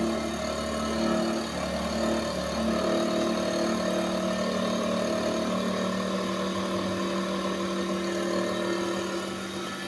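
Electric sharpening machine running, a steady motor hum that shifts in pitch a couple of times, under an even hiss.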